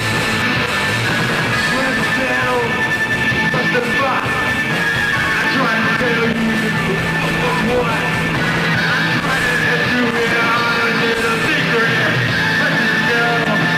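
Rock band playing live and loud, with a singer's voice over the instruments.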